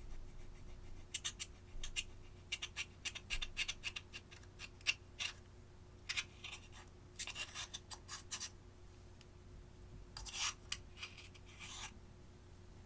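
Eyeshadow and slime being worked by hand: runs of quick, sharp crackling clicks and scratches, with longer scraping rasps about six and ten seconds in.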